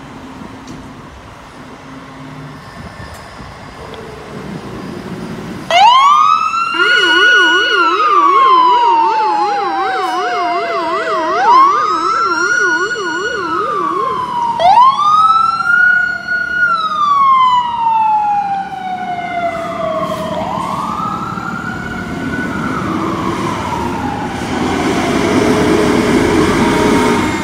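Fire apparatus sirens on vehicles leaving a station. After a few seconds of low engine and street noise, a siren starts suddenly about six seconds in and winds up and slowly falls in repeated long wails, with a fast yelp running over it for several seconds; near the end a lower warbling siren comes in.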